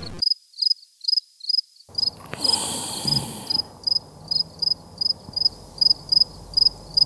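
Quiz-show countdown timer sound effect: short, high ticks about twice a second while the answer time runs. A short hiss comes in about two and a half seconds in.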